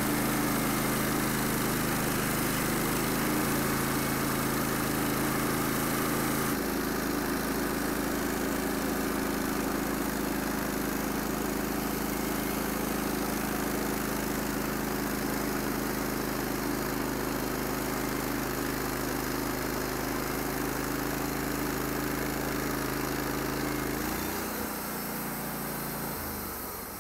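Wood-Mizer LT15 Wide portable bandsaw sawmill running under load, its band blade cutting lengthwise through a 28-inch cottonwood log. The steady engine-driven running sound drops and changes about three seconds before the end.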